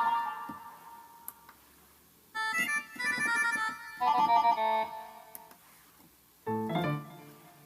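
Korg Pa50 arranger keyboard playing short demo phrases of its preset voices, piano- and organ-like tones, with brief silent pauses between them. A note rings out and fades at the start, two phrases follow in the middle, and a short low chord sounds near the end.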